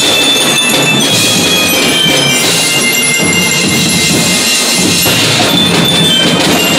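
Marching drum band playing: snare and bass drums keep a steady beat under ringing marching bells (glockenspiel), with pianikas (melodicas) and a cymbal in the ensemble.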